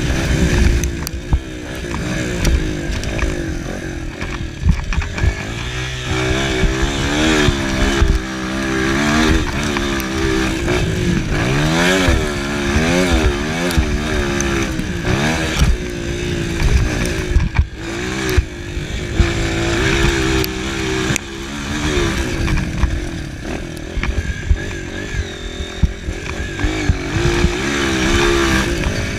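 Honda CRF230 dirt bike's air-cooled four-stroke single-cylinder engine, heard on board while riding hard: the revs rise and fall again and again as the throttle is worked. Wind noise and frequent knocks from the rough dirt track run under it.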